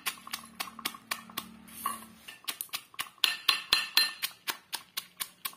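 Metal pestle pounding in a metal mortar, crushing badi with garlic and green chillies: a run of sharp metallic clinks about four strokes a second, growing louder after about two seconds.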